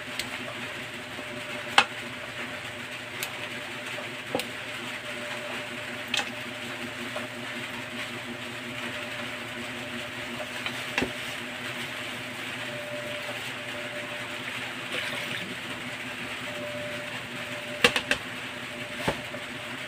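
Steady hiss of rain, with scattered sharp clicks and knocks of pots and utensils being handled, two close together near the end.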